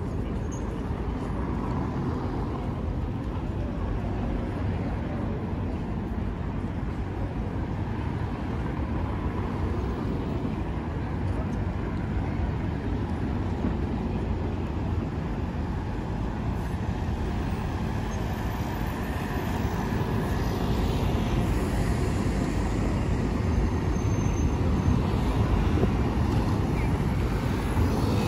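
Street traffic: cars and buses driving past with a steady low rumble, growing louder in the second half as vehicles pass closer.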